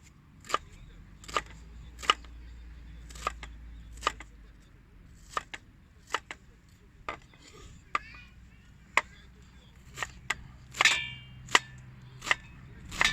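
Sharp single knocks, one at a time, roughly once a second at uneven spacing.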